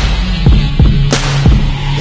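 Loud music with a heavy, sustained bass line, repeated deep bass thumps and a sharp drum hit about a second in.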